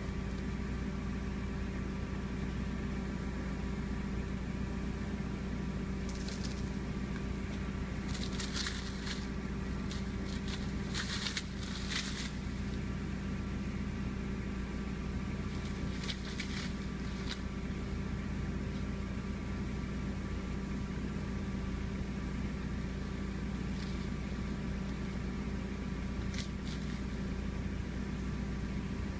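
Steady mechanical hum made up of several fixed tones, broken by a few brief crackling noises.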